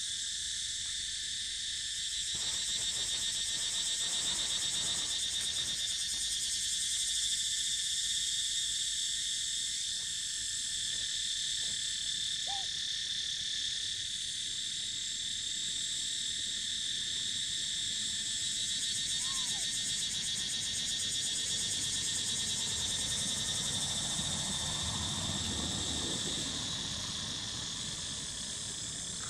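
Steady, high-pitched insect chorus: a continuous drone of several layered pitches that does not let up.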